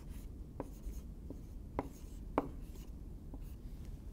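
Dry-erase marker writing on a whiteboard: about five short strokes of the marker tip, several with a brief falling squeak, the loudest about two and a half seconds in.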